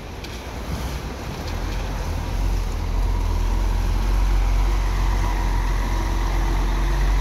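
Saritur intercity coach's diesel engine rumbling as the coach pulls away past close by. The deep rumble builds over the first few seconds and then holds loud, with a faint steady whine above it.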